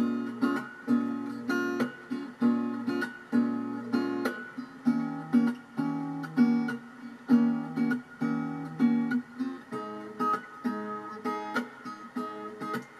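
Strummed acoustic guitar chords, the intro of a song, played back through a pair of Victor three-way hi-fi speakers, with a steady rhythm of a few strums per second.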